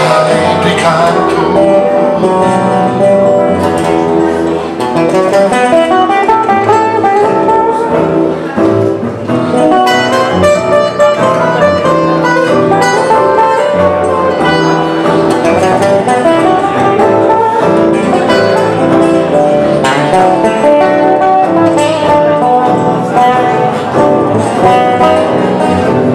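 Live Roma music from two acoustic guitars and a plucked double bass, a guitar picking a busy, fast-moving melody over the rhythm guitar and bass.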